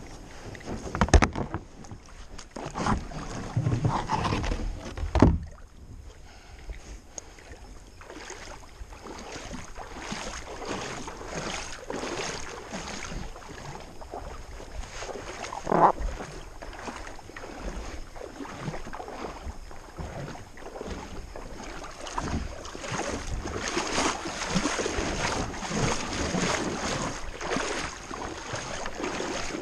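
Plastic sit-on-top kayak on a shallow river: irregular water splashing and dripping around the paddle and hull, with a few sharp knocks, and a busier stretch of splashing water near the end.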